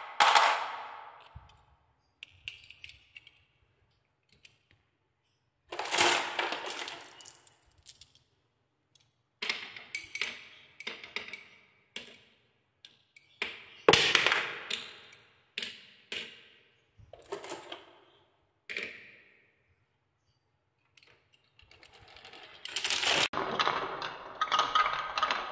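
Marbles and small balls rolling and clacking down wooden marble-run tracks, in several separate bursts of rapid clicking with short silences between, then a longer rolling rattle as a row of balls runs round a wooden spiral near the end.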